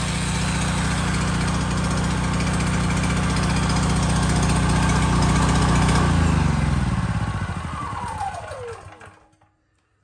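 Honda EB26 gasoline generator's engine running steadily, then switched off about six seconds in: its note falls in pitch and dies away over about three seconds.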